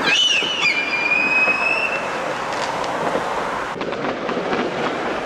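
Tram wheels squealing: a high, steady squeal lasting about two seconds, over the rumble of a passing tram and street noise.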